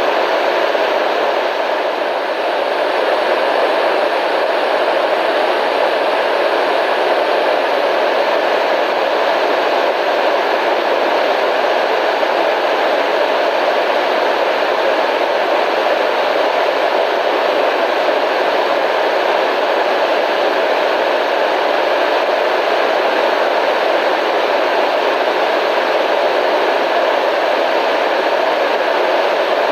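Steady static hiss, even and unbroken, strongest in the middle range with little low rumble or high treble.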